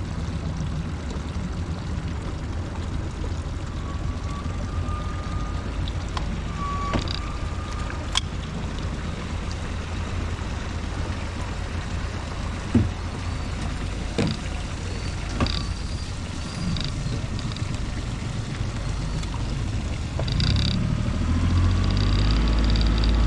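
Small boat under way: a steady low rumble that grows louder about three-quarters of the way in, with a few sharp clicks and short high chirps over it.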